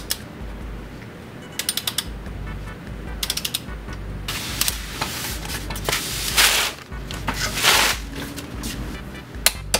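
Ratchet of a click-type torque wrench ticking in quick short bursts, three times in the first few seconds, as flywheel bolts are run in. It is followed by several louder noisy bursts of handling and a single sharp click near the end.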